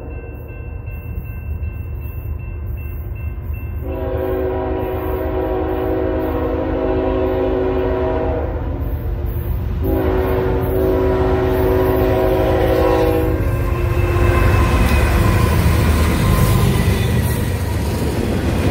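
Freight locomotive air horn sounding two long blasts for a grade crossing as the train approaches. After the blasts the low rumble of the diesel locomotives and rolling freight cars grows louder as the train passes close by.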